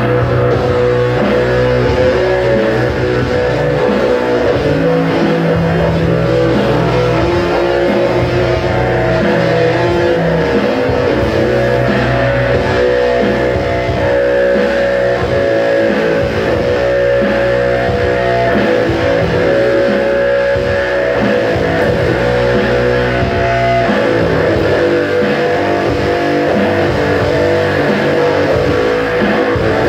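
Electric guitars played loud through amplifiers: an instrumental rock riff with no singing. The lowest notes drop away for a few seconds near the end, then come back.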